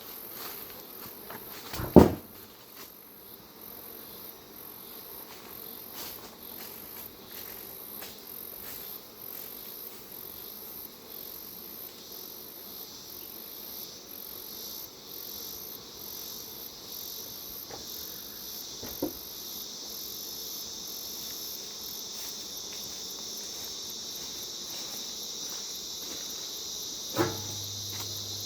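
Insects chirping outdoors: a very high, evenly pulsing trill, joined by a second, lower insect drone that grows louder toward the end. A sharp knock about two seconds in, and fainter knocks later.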